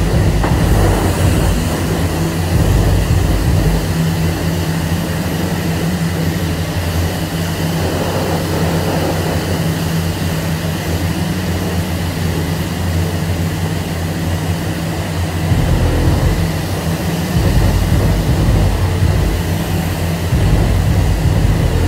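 Self-serve car wash pressure wand spraying water onto a car: a steady hiss of spray over a loud low drone from the wash equipment. The low drone eases off for a while and comes back strongly past the middle.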